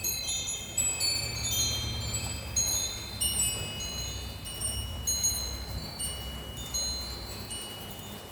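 Wind chime ringing in a light breeze: many high, bell-like metal tones struck irregularly and overlapping, each ringing on briefly, with a low rumble underneath.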